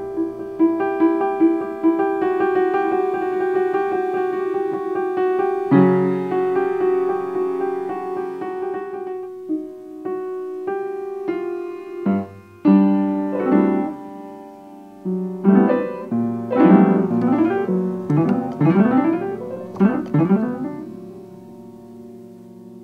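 Piano music: repeated notes and held chords, then a dense run of quick notes that fall in pitch near the end.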